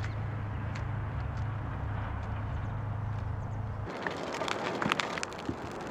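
A steady low hum with a few faint clicks. About four seconds in it cuts to a bonfire burning, with many sharp crackles and pops.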